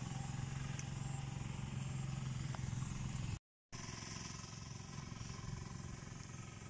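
A steady low engine hum, like a small motor running at a constant speed, with no rise or fall in pitch. It cuts out completely for a moment a little past halfway.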